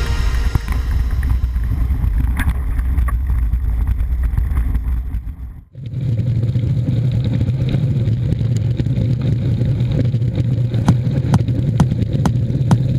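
Mountain bike riding a dirt trail, heard through an action camera: a steady low rumble of wind and tyres, with the bike rattling and clicking over rough ground. The sound fades out briefly a little over five seconds in, then picks up again with more frequent clicks.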